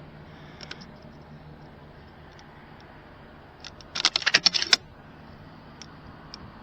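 A rifle scope's elevation turret being dialed: a quick run of about ten small mechanical clicks, about four seconds in.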